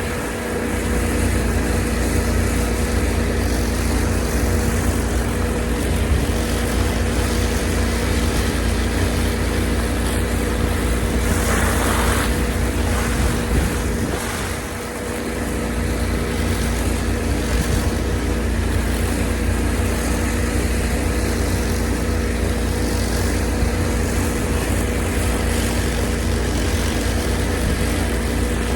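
An engine running steadily, with a brief hiss about twelve seconds in.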